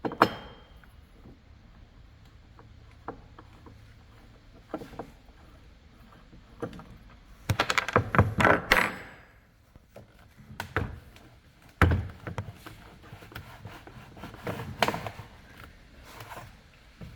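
Scattered knocks, clicks and rattles of hand tools and trimmer parts being handled during disassembly, with a busy burst of rattling about halfway through and a sharp knock soon after.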